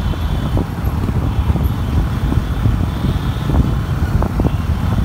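Motorcycle ride heard from on board: engines running and wind buffeting the microphone, a loud, uneven low rumble.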